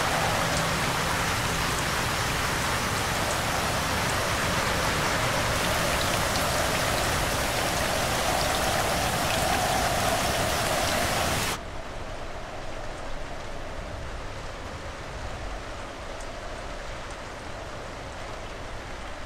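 Steady heavy rain pouring on a city street. About two-thirds of the way through it cuts suddenly to quieter, duller rain heard from inside a building, which fades out at the very end.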